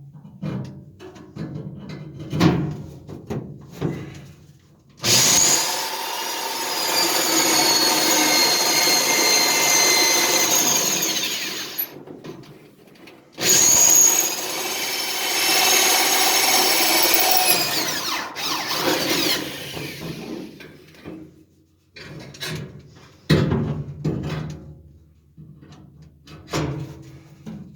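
Electric hand power tool running in two long bursts of several seconds, its whine falling away as it spins down after each. Scattered knocks and clatter of parts being handled come before and after the runs.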